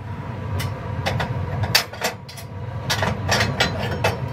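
Irregular metal clicks and clanks as the steel pieces of a biomass furnace burn pot are handled and lifted out of their housing. Under them runs the steady hum of the furnace's exhaust blower.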